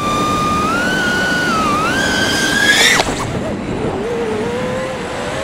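FPV racing quadcopter's motors (T-motor F60 ProV 2020kv on a 5-inch quad) whining under throttle, the pitch climbing for about three seconds, then dropping off abruptly into a lower, quieter whine that slowly rises again, with a rush of wind.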